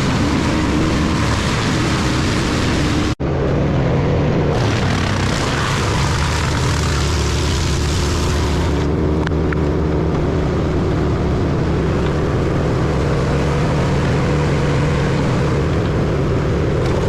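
Wood chipper running at full engine speed: a loud, steady engine drone with a dense rushing noise on top. It drops out for an instant about three seconds in.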